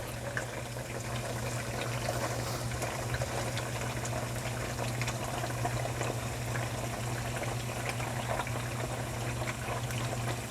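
Tofu frying in hot oil: a steady sizzle dotted with small crackles and pops, over a constant low hum.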